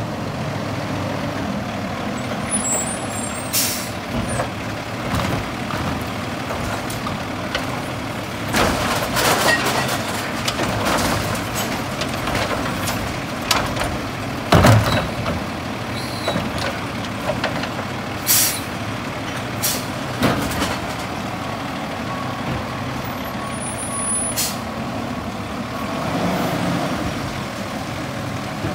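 Autocar garbage truck with a Heil Multitask side-loader body idling while its automated arm lifts and tips a wheeled cart into the hopper, the cart and its contents banging about midway, with a few short hisses of air from the brakes.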